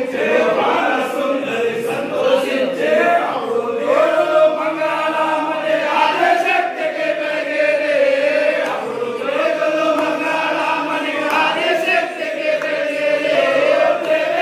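A group of men chanting together in unison, holding long notes that glide up and down.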